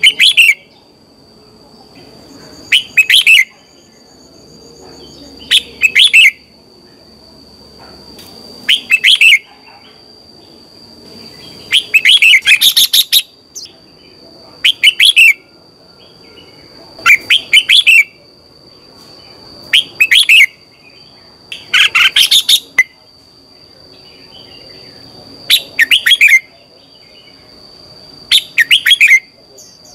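Red-whiskered bulbul singing short, loud song phrases, one every two to three seconds.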